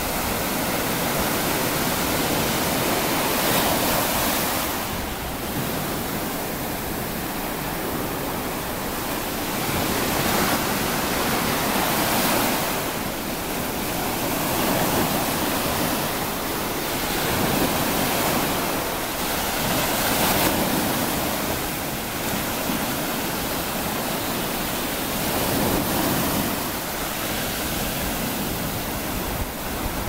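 Small sea waves breaking and washing up over a shingle beach, the surf swelling and easing every few seconds.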